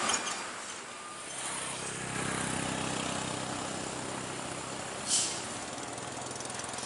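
A heavy truck's engine running steadily as the truck approaches, with a short sharp hiss of air about five seconds in.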